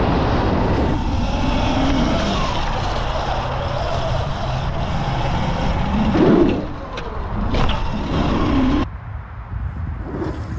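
Sur Ron electric dirt bike's motor whining, its pitch gliding up and down with the throttle, under a loud steady rush of noise. There is a louder burst about six seconds in, and the rush drops off suddenly near the end.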